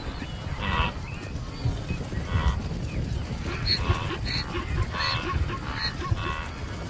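Herd of spooked plains grazers calling in alarm at night: short honking barks, a few at first, then many in quick succession from about three and a half seconds in, over a low rumble.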